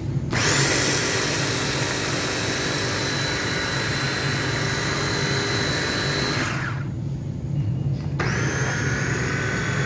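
Electric food chopper's motor whining as its blades chop soaked urad dal. It runs for about six seconds, winds down, then is switched on again about eight seconds in.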